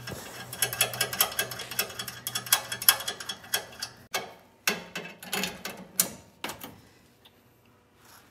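Hand ratchet wrench clicking fast as it runs a locking nut down a leaf-spring U-bolt, tightening the helper-spring mount. After about three and a half seconds the clicking stops and a few separate clicks and knocks of the wrench on the nut follow.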